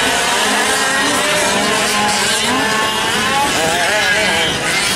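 Several 1/5-scale gas RC trucks' small two-stroke engines running together, their overlapping pitches rising and falling as they rev and ease off.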